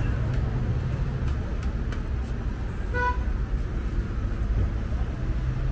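Steady rumble of passing road traffic, with a single short car horn toot about three seconds in.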